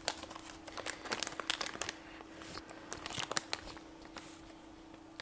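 Small parts and packaging being handled on a workbench: scattered sharp clicks and crinkling, in two busier clusters about one and three seconds in, over a faint steady hum.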